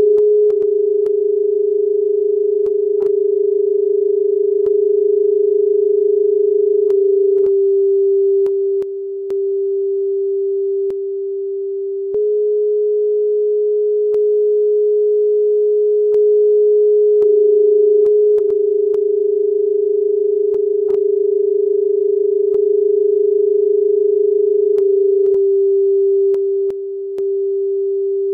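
A loud, steady electronic sine-wave drone a little over 400 Hz, stepping slightly up or down in pitch every few seconds, with faint scattered clicks.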